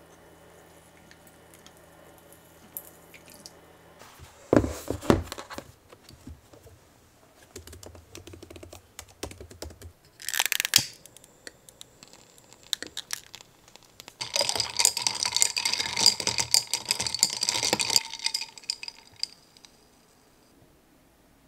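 A series of small handling sounds: a short rattle about four seconds in, a brief hiss about ten seconds in, then several seconds of dense clicking and clinking with light ringing.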